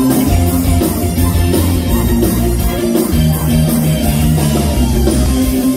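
A live band playing loud music, with a drum kit keeping a steady beat under sustained bass notes.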